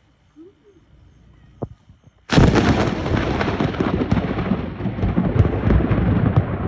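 Close lightning strike: after a quiet stretch, a sudden, very loud thunderclap about two seconds in, followed by a loud, continuing rumble of thunder.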